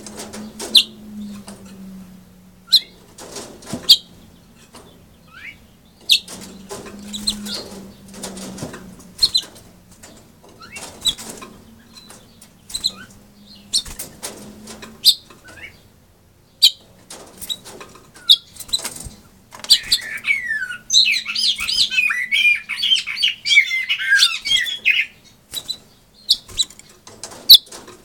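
Caged house finch giving short sharp chirps and moving about the cage, then singing a rapid, warbling song for about five seconds starting around twenty seconds in.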